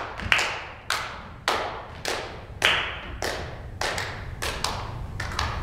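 Several people clapping their hands together in a steady beat, about two claps a second. Each clap echoes in a large, empty theater.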